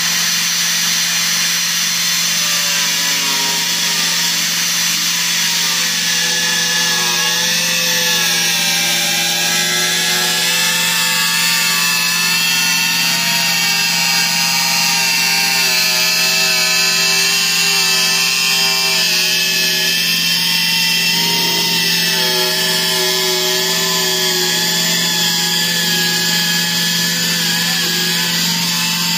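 Pneumatic right-angle cut-off tool running without a break, its small abrasive wheel cutting through a plastic body panel. Its whine wavers in pitch as the wheel bites and eases in the cut, over a steady hiss.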